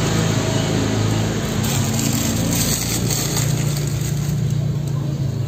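An engine running steadily at idle, a loud, even low hum.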